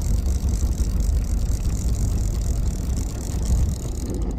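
Small boat's outboard motor idling, a steady low rumble.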